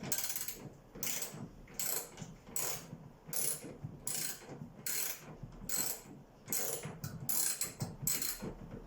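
Ratcheting hand tool clicking in short, regular strokes, about one run of clicks each second, as bolts on the refrigerator door's hinge are worked loose.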